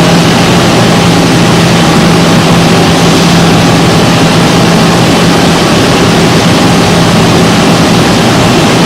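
Tongtai VTX-5 CNC milling and tapping center running: a loud, steady rush of machine noise with a constant low hum and a faint higher whine.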